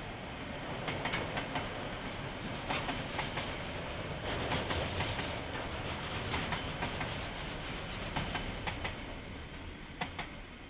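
Container freight train's wagons rolling past, their wheels clacking over rail joints in quick groups of a few clicks every second or two over a steady rumble. It dies away near the end as the last wagons pass.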